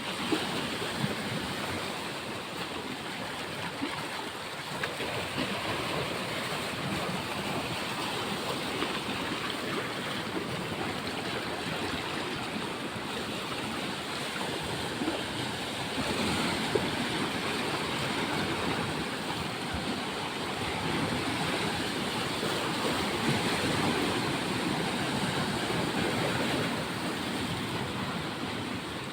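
Sea surf washing onto the shore in a steady rush that swells slowly, a little louder in the second half.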